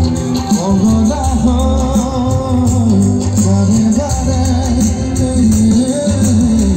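Live stage music over a loudspeaker system: a solo singer's wavering melody over heavy bass and a steady percussion beat.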